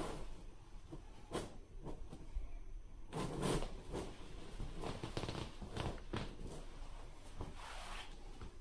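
Furry fursuit paws rubbing and patting the taut vinyl of a large inflatable pool-toy wolf: irregular rubs and soft knocks, the strongest about three seconds in.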